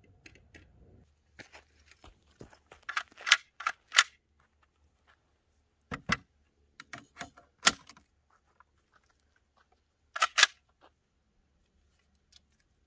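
Sharp metallic clicks and clacks of a PPS43C pistol being handled and readied: a run of clicks about three to four seconds in, another pair near six seconds, more just after seven, and a loud double clack about ten seconds in.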